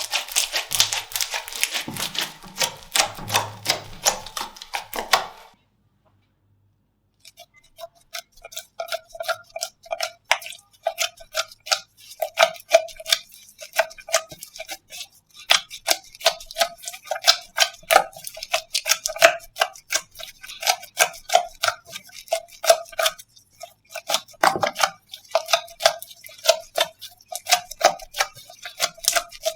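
Slime being squeezed and worked by hand, first with a dense crackle of clicks. After a short break it becomes a steady run of sharp, wet-sounding pops, a couple a second, each with a brief ringing note.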